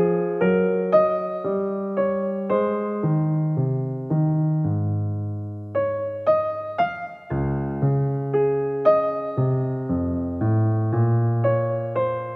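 Background piano music: a steady run of single notes over chords, about two notes a second, with a brief dip about seven seconds in.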